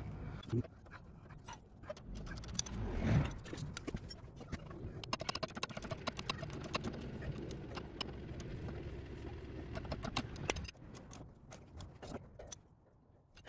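Scattered light clicks and metal clinks of tools and parts being handled during work on a car's anti-roll bar drop link, with a brief louder sound about three seconds in.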